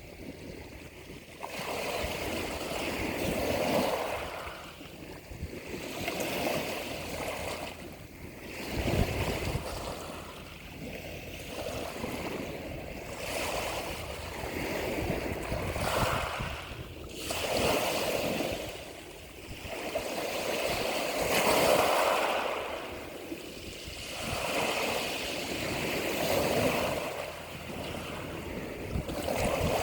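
Sea waves washing ashore, one swell rising and falling about every two to three seconds.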